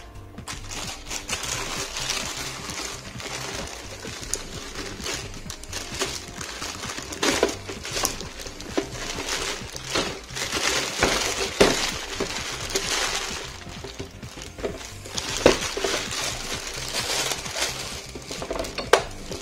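Clear protective plastic film crinkling and crackling as it is pulled and peeled off by hand, with louder crackles now and then.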